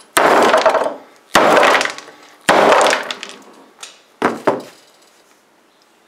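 Hammer blows on a plastic McFarlane Spawn action figure lying on a wooden workbench: three heavy whacks about a second apart, each trailing off briefly. A few lighter knocks follow near the end.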